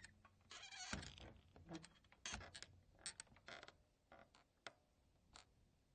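Swinging saloon doors creaking and knocking as they flap back and forth, with a sharp knock about a second in. The strokes grow shorter and fainter until only a few light clicks remain near the end, as the doors settle.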